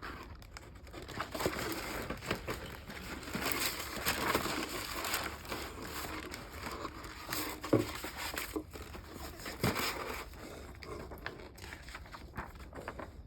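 Plastic model kit packaging being handled, crinkling and rustling unevenly with many small clicks. Two sharper knocks come about eight and ten seconds in.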